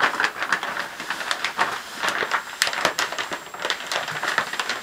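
Plastic shower curtain rustling and crinkling with rapid, irregular crackles as a cat claws and bats at it from inside the tub.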